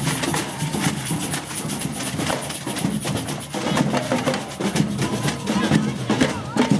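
Percussion-led band music from a street procession: drums and sharp, rapid hits played in a busy, fairly loud stretch.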